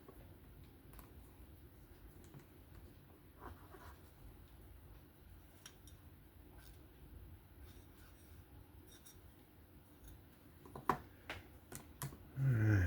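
Quiet handling of small knife parts, with a few sharp clicks and taps close together near the end. Right at the end comes a short, louder low sound that drops in pitch.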